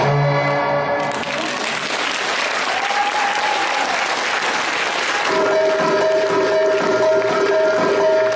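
A live Arabic band's melody breaks off about a second in and the audience applauds for about four seconds; then a darbuka starts a drum rhythm under a steady held note.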